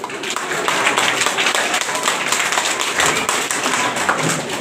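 Audience clapping: many hands applauding together, starting suddenly and thinning out near the end.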